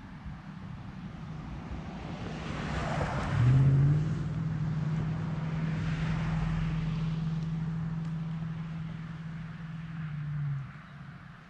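A passing engine: a steady hum with one held tone that swells from about two seconds in, is loudest at about three and a half seconds, and cuts off about ten and a half seconds in.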